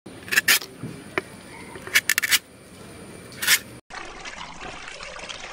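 A tapper's knife slicing thin shavings off the cut tip of a coconut flower spathe in several short scraping strokes. Then, after a break, toddy (palm sap) poured from a plastic jerry can into a pot with a steady splashing trickle.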